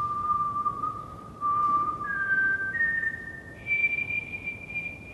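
A person whistling a slow melody in long held notes: one low note, then from about two seconds in it steps upward three times to a higher held note.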